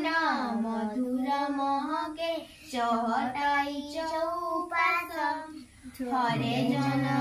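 Children singing a song in unison-like phrases with held, gliding notes, breaking off briefly about two and a half and six seconds in. A low steady tone joins under the voices near the end.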